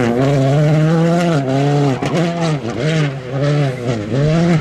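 Škoda Fabia Rally2's turbocharged four-cylinder engine at high revs on a gravel stage. The note climbs and drops several times as the driver shifts and lifts, with short dips about two and four seconds in.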